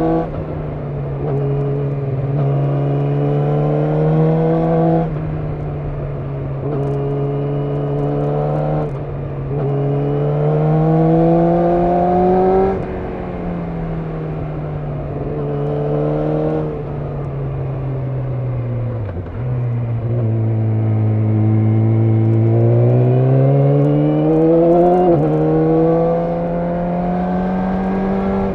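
Yamaha YZF-R6's inline-four engine under way. Its pitch climbs under throttle and drops sharply at each gear change or roll-off, several times over. In the middle there is a longer fall in pitch as it slows, before it pulls again.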